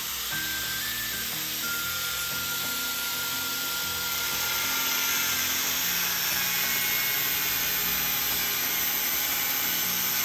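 Electric angle grinder with a cutting disc running steadily as it slices lengthwise along a pipe to split it in two.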